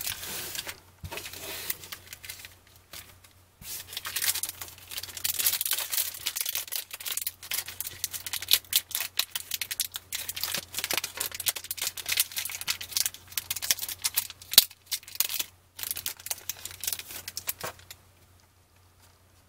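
Foil trading-card pack wrapper crinkling and tearing as it is peeled open by hand: a dense run of sharp crackles with a few short pauses, dying away about a second and a half before the end.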